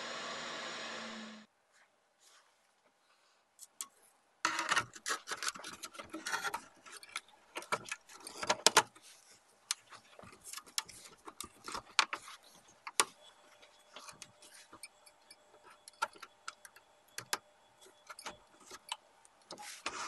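A steady hiss cuts off about a second and a half in. After a short quiet stretch come irregular clicks, taps and rattles as the PS5 motherboard and its plastic and metal chassis are handled and fitted together.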